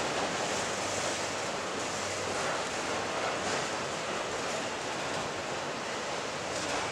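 Autorack freight cars rolling slowly past on the track: a steady rushing noise of wheels on the rails.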